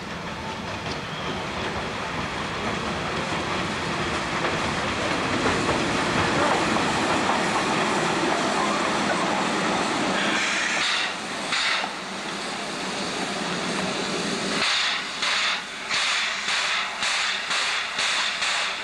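Steam locomotive moving slowly through a rail yard: a broad rumble of its running gear builds over the first half, then steam hisses, and in the last few seconds its exhaust beats in a steady rhythm of about two to three chuffs a second.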